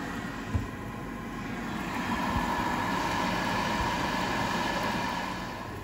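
Emeril Lagasse Power Air Fryer 360 XL's convection fan running steadily while air-frying, a constant rush of air, with a soft low thump about half a second in.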